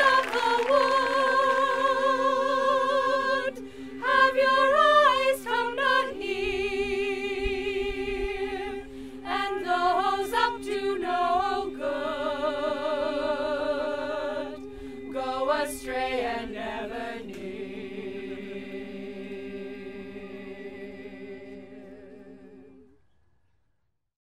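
Community choir singing unaccompanied: lower voices hold long steady notes while higher voices move above them with a wavering vibrato. The singing fades out near the end.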